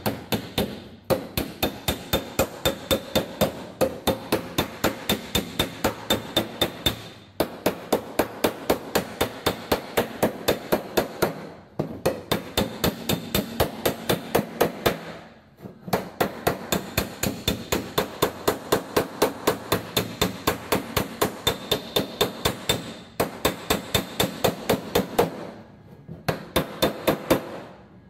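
Body hammer planishing the welded steel quarter panel of a Holden Torana, striking the metal in a fast, even series of ringing blows at about five a second. The blows come in runs of several seconds with short pauses between. The hammering stretches the weld's heat-affected zone back out, since the metal shrank as the weld cooled.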